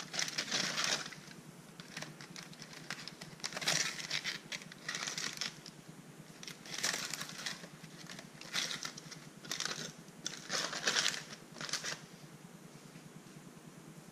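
Aluminium foil crinkling in a series of short rustling bursts as it is pulled open and folded back from a baking tray.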